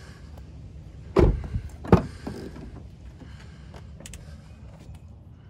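Doors of a Nissan Rogue Sport being worked: two heavy clunks about two-thirds of a second apart, followed by a few faint clicks.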